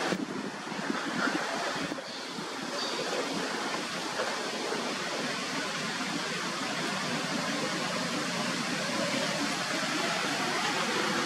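Steady rushing outdoor noise with no distinct events, apart from a faint click about two seconds in.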